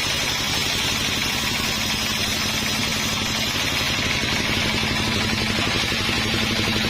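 Sawmill machinery running steadily: an engine's rapid, even pulsing under a constant hiss, with a steady hum joining about a second in.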